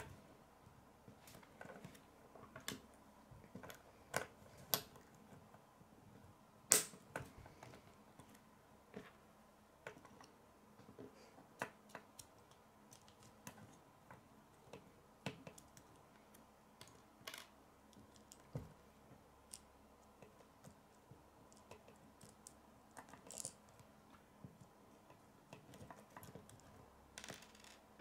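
Plastic K'nex pieces clicking and tapping as they are pushed together and handled on a wooden tabletop: faint, scattered sharp clicks at irregular intervals, the loudest about seven seconds in.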